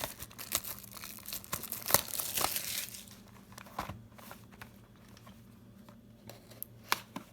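Trading-card packaging crinkling and tearing as a new box or pack is opened. It is dense for about three seconds, then thins to scattered light clicks and handling sounds.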